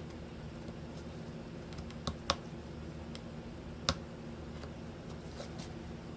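Carving tool cutting into hard oak: a few sharp clicks and snaps as wood chips break out along the carved lines, over a steady low hum.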